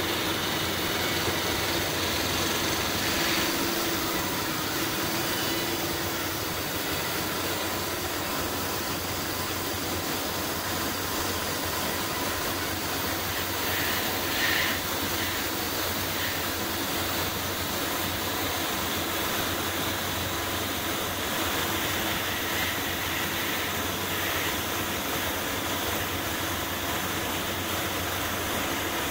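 Gravity-feed paint spray gun hissing steadily as compressed air sprays paint, with a steady machine hum underneath.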